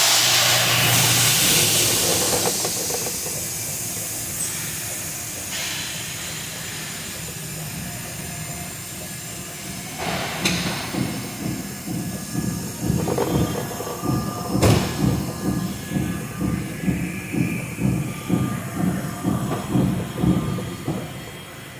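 Train rolling slowly past. A loud rushing hiss fades over the first several seconds. Then comes a steady rhythm of wheel clacks, about three every two seconds, with a couple of sharp bangs.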